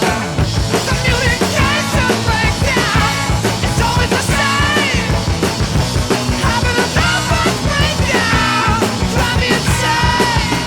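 Loud rock music with a driving drum beat and a singing voice.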